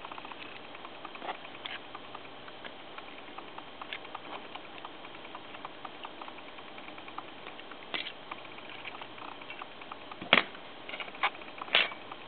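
Small clicks and light taps from handling a thin photo-etched metal part, over a steady faint hiss. A few sharper clicks come near the end, the loudest about ten seconds in.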